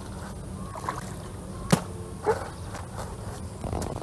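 Sharp knocks of a hand tool striking banana tree trunks: a light tap, then two hard strokes about half a second apart in the middle.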